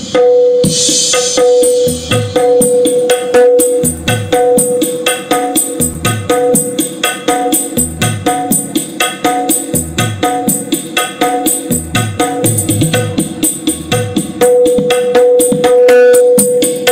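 Music with a fast, even hand-drum and tambourine beat played loud through a line-array middle box fitted with two Audax 8-inch fullrange speakers and a horn, as a sound test of the new speakers.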